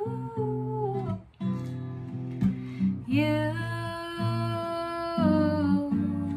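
A woman singing long held notes to her own strummed acoustic guitar chords. The voice breaks off briefly about a second in, then comes back with a long sustained note through the middle.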